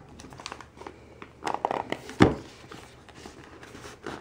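Cardboard shipping box being handled and pulled open by hand: scraping and rustling of the cardboard, with a sharp knock a little over two seconds in.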